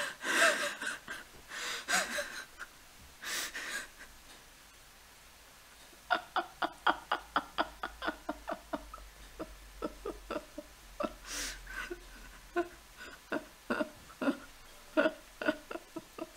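A man laughing under his breath: a few breathy, wheezing bursts, then a long run of short stifled laughs, several a second.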